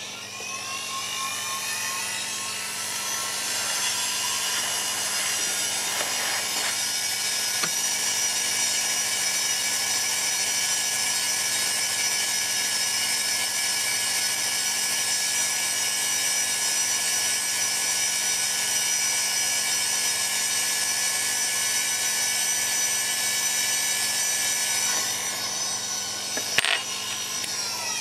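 Hot-air rework station blowing through a very small nozzle to melt the solder of a tiny surface-mount connector: a steady rush of air with a high whine that rises in pitch as the blower spins up at the start and falls away as it winds down near the end, with a short click just before it stops.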